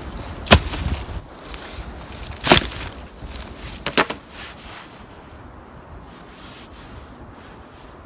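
Wooden poles thrown down onto a pile, giving three sharp wooden knocks in the first four seconds, the last one a double knock, then only faint rustling.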